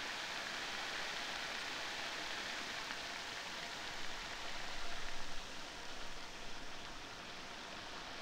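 Bacon sizzling in a frying pan on a propane camp stove: a steady hiss like light rain. It eases a little about four seconds in, when a few low thumps come through.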